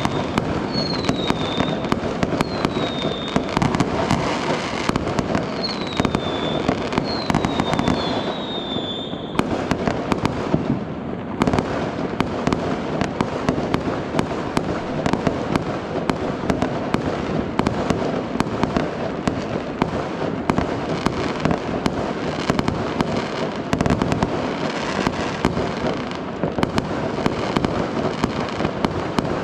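Fireworks and firecrackers going off in a dense, continuous barrage of rapid bangs and crackling. Several short falling whistles sound over it in roughly the first nine seconds.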